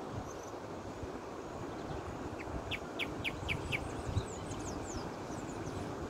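A bird calling in a quick run of about six short, sharp chirps a couple of seconds in, followed by fainter high-pitched notes, over a steady low outdoor rumble with occasional wind bumps on the microphone.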